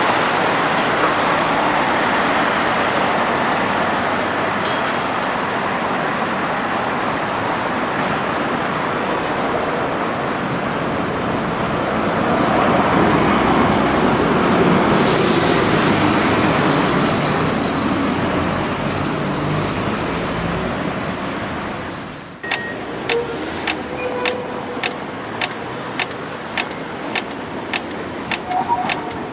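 Škoda 15T ForCity low-floor tram running past close by, its wheels on the rails heard over steady street traffic, loudest as it goes by. About 22 seconds in, the sound drops to quieter traffic with a sharp regular ticking, just under two ticks a second, as the tram turns across a junction.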